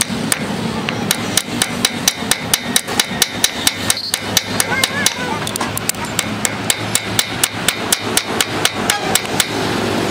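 Hand hammer striking steel in quick, even blows, about three to four a second, stopping shortly before the end.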